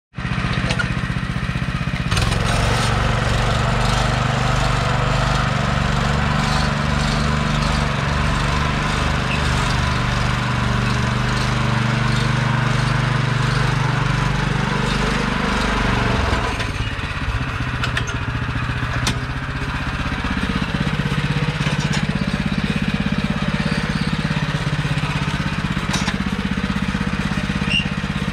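Petrol turf cutter running as it cuts a strip of lawn, its small engine droning steadily with a shift in tone a little past halfway through.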